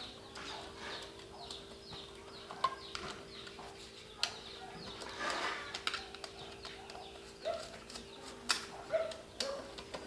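Birds chirping in the background, a steady run of short falling chirps, with a few sharp clicks from hands working wires and fittings in a metal electrical box, over a faint steady hum.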